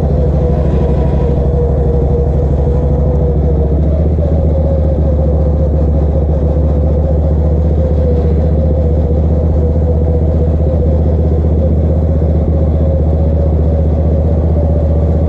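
Racing ride-on lawn mower's engine running at a steady, even speed, heard from the driver's seat, with a steady whine over the engine note.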